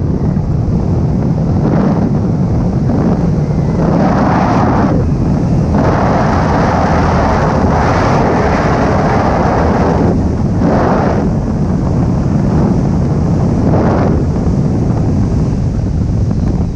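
Loud wind rushing over the microphone in flight, a constant low rumble that surges in gusts several times.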